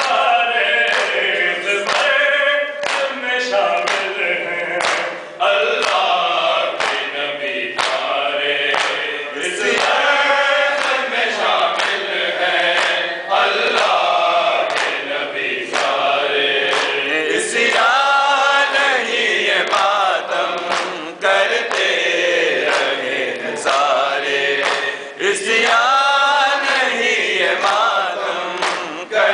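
A group of men chanting an Urdu nauha (mourning lament) in unison without instruments, over a steady rhythm of sharp slaps of open hands beating on their chests (matam).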